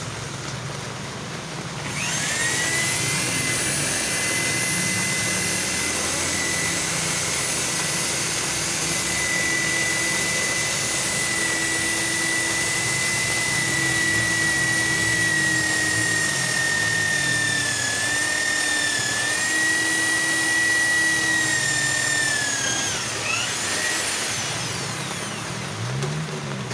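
Corded electric hand drill running and drilling into a painted metal frame post: a steady high whine that starts about two seconds in, sags briefly a few times as the bit bites, and winds down a few seconds before the end.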